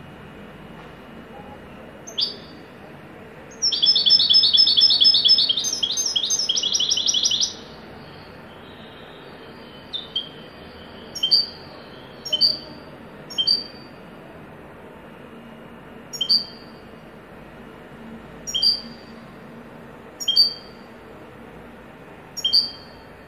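European goldfinch singing in the song style its keepers call haddadi: a single high note, then a fast run of rapidly repeated notes lasting about four seconds, followed by short single high notes every second or two.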